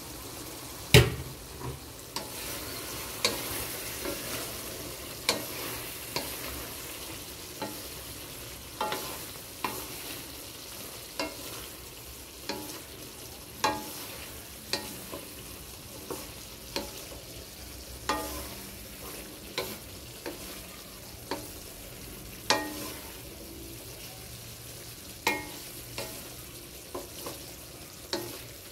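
Wooden spatula stirring vegetables in a metal wok, knocking and scraping against the pan at irregular intervals, roughly once a second, over a steady low sizzle from the sauce. The loudest knock comes about a second in.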